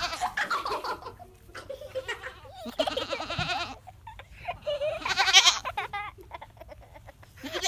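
Goats bleating: several quavering bleats a couple of seconds apart, with another starting near the end.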